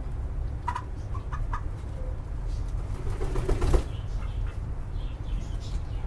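Chickens in a coop: a few short clucks in the first two seconds, then a louder burst of wing flapping about three seconds in, over a steady low rumble.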